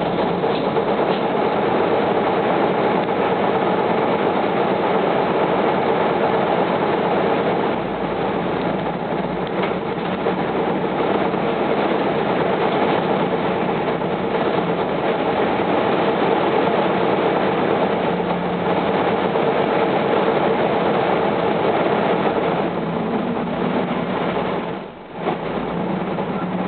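Steady drive noise inside an Isuzu medium-duty city bus under way: diesel engine and road rumble. The level drops briefly and sharply near the end.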